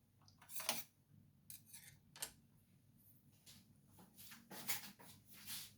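Faint, scattered taps, clicks and scrapes of kitchen items being handled, about eight short sounds at uneven intervals.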